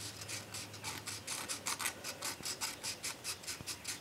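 Fine 220-grit sandpaper rubbed quickly back and forth between the contacts of a small engine's ignition breaker points, a soft rhythmic scratching of about four strokes a second. The rubbing scours off rust and pitting that keep the points from working.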